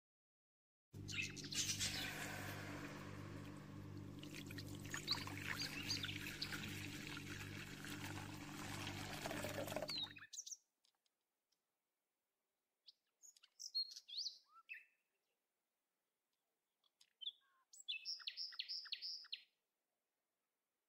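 Small birds chirping in short, high calls, including a quick run of about five notes near the end. For roughly the first ten seconds a steady low hum and hiss lies under the chirps, then cuts off suddenly.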